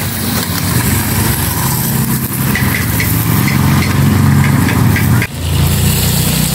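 A motor running steadily at idle: a loud, even low hum, briefly cut off about five seconds in.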